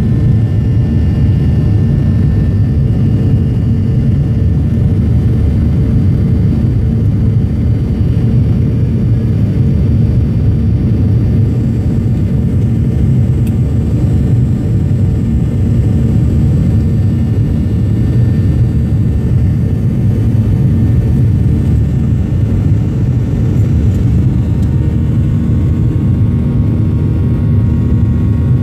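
Boeing 737's jet engines at takeoff and climb thrust, heard from inside the cabin over the wing during the initial climb-out: a loud, steady low rumble.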